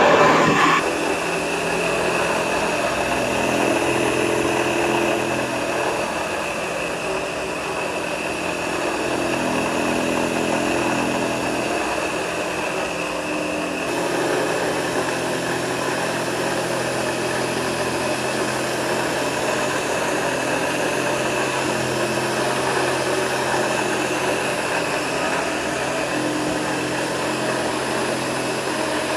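1939 Hoover 725 upright vacuum cleaner running steadily during a floor test, a continuous motor drone with a high whine, its lower notes shifting a little as it is worked over the floor.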